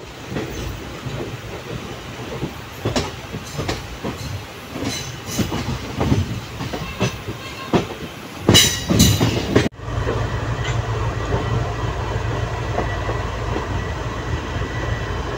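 Passenger train wheels clattering over rail joints and points as the train rolls slowly into a station, with a short, louder squeal of wheels about eight and a half seconds in. After an abrupt cut near ten seconds there is a steadier low rumble.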